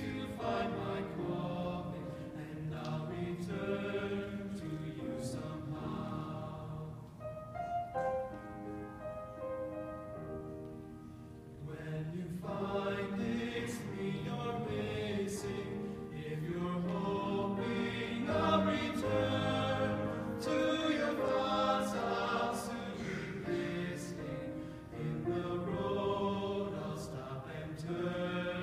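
A choir singing in sustained harmony. About seven seconds in it drops to a quieter, thinner passage, and the full choir comes back in about five seconds later.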